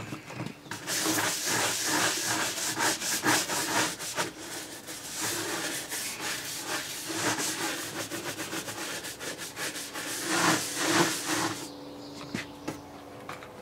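A brush scrubbing the surface of a boat console wet with cleaner, in rapid back-and-forth strokes that stop near the end.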